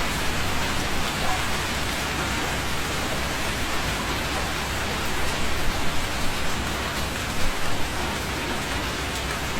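Steady rainfall: an even hiss of raindrops, with a few louder spatters past the middle.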